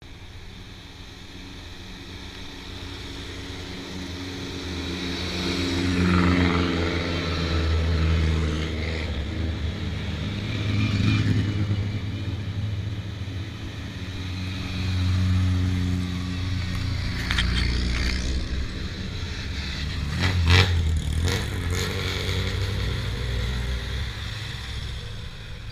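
Several cars driving past one after another, each engine rumble swelling and fading as it goes by. A few sharp cracks come about two-thirds of the way through, the loudest near the end.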